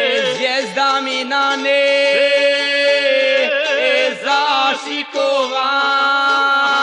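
Traditional Bosnian folk music from Ozren: a melody with wide vibrato and quick runs over a steady drone.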